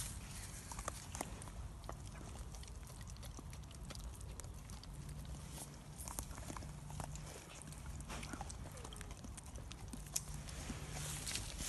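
Dogs licking and smacking at a treat held out by hand: a scatter of small, irregular wet clicks.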